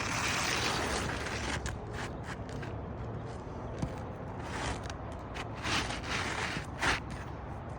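Intermittent scraping and creaking of roof shingles being worked, with a few sharp clicks between the scrapes.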